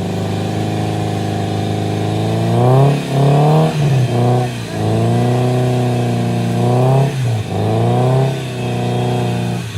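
Off-road vehicle engine running loudly, then revved up and down several times, the pitch rising and falling in repeated surges from a few seconds in.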